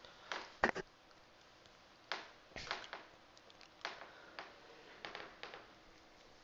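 Faint, irregular clicks and taps of a computer keyboard and mouse, about a dozen of them, stopping about five and a half seconds in.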